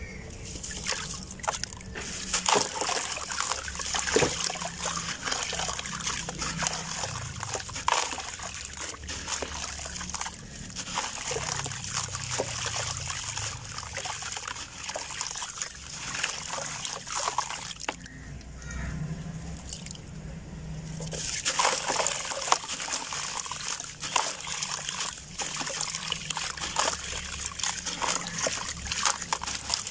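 A grainy bajri (coarse sand and gravel) block crumbled by hand into a tub of water: gritty crackling and many small clicks as grains break off, with streams of sand trickling and splashing into the water. The crumbling eases off briefly about 18 seconds in, then picks up again.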